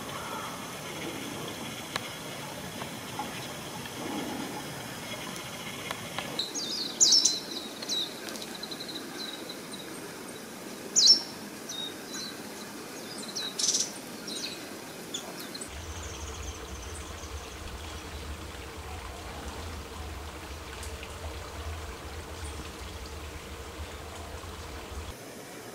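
Shallow running water at first; then, after a cut, a handful of short, sharp, high chirps from a small songbird. Near the end comes a quieter steady background with a low hum.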